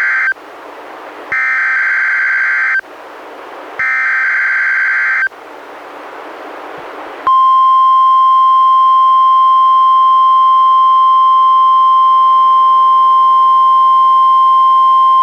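NOAA Weather Radio Emergency Alert System sequence for a Required Weekly Test: the end of one SAME header data burst and two more buzzing bursts of digital tones, each about a second and a half long and a second apart. After a pause of about two seconds, the steady 1050 Hz NWR warning alarm tone starts about seven seconds in and holds.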